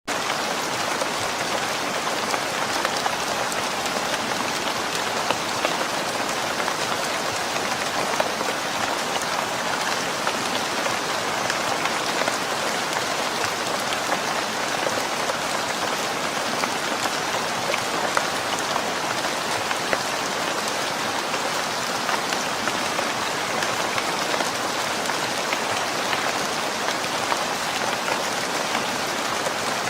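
Steady rain falling on a surface, an even hiss of rainfall with many small drop ticks.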